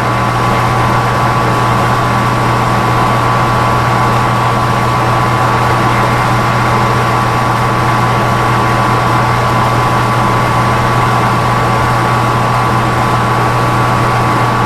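Metal lathe running steadily with the power feed on as the tool takes a roughing cut across the face of bar stock: a constant hum with a steady high whine over it.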